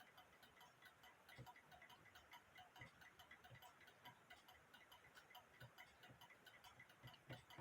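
Faint, fast ticking of a mechanical clock, about five ticks a second.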